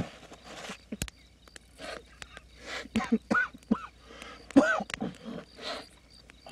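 A man's voice in short bursts of laughter and hoots, with pitch rising and falling, loudest a little past the middle.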